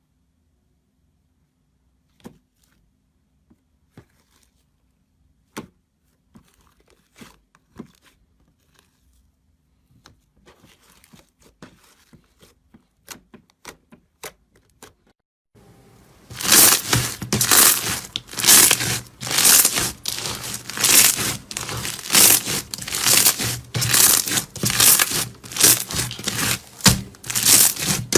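Crunchy material pressed and crushed by hand, as in slime or soap ASMR: a few faint clicks and crackles at first, then from about halfway a loud, crisp crunching in a steady rhythm, about one to two crunches a second.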